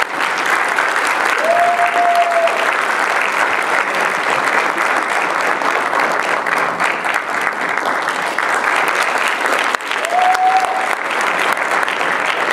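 Audience applauding steadily after a choir performance, with two short cheers rising above the clapping, about two seconds and ten seconds in.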